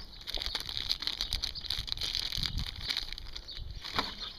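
Light clicks and rustles of a balisong knife and its packaging being handled, with a sharper click about four seconds in, over steady high bird chirping in the background.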